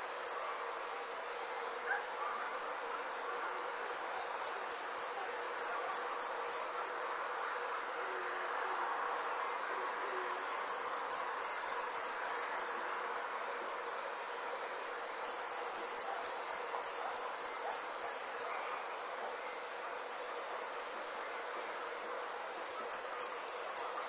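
Evening insect chorus: a steady, high-pitched trill runs throughout, and over it come bouts of loud, rapid chirping, about four pulses a second, each bout lasting two to three seconds and returning every five or six seconds, over a faint background hum.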